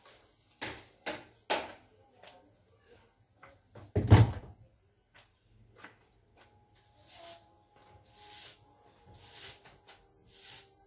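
Clattering knocks as things are moved about during cleaning, then one loud heavy thump about four seconds in. After that a broom sweeps the floor in swishing strokes about once a second.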